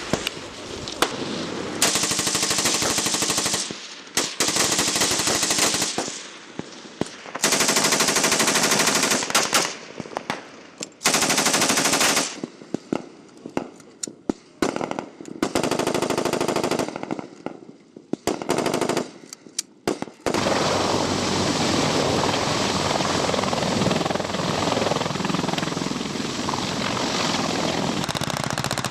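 Automatic weapons fire from M4 carbines and M249 light machine guns on a live-fire range. Rapid bursts alternate with short lulls for the first twenty seconds or so, then the firing becomes continuous.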